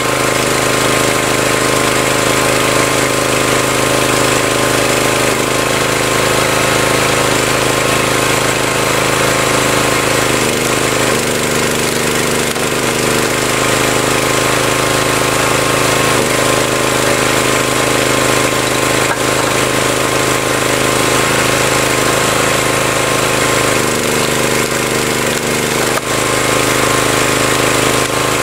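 The log splitter's 7-horsepower Subaru single-cylinder engine runs steadily, driving the hydraulic pump. Its note shifts briefly a few times, around ten and again about twenty-four seconds in.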